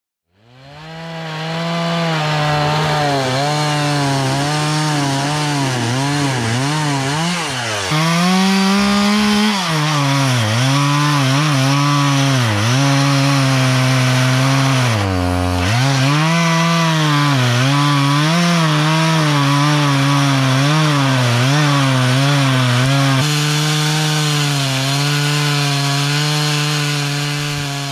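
Stihl MS170 two-stroke chainsaw at high revs cutting through logs. The engine note repeatedly sags under load and picks back up as the chain bites and clears, with one deeper drop about halfway through.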